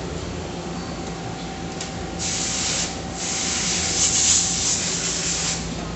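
Romi C420 CNC lathe running with a steady hum from its spinning chuck. Two loud bursts of hissing spray come over it, a short one about two seconds in and a longer one from about three seconds in until near the end.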